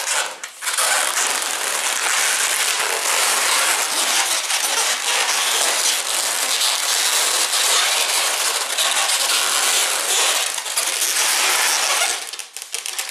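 Inflated latex twisting balloons (260 and 160 sizes) rubbing and squeaking against each other as a twisted piece is pushed and locked between two twisted sections. The sound is a loud, continuous crackle that stops about a second before the end.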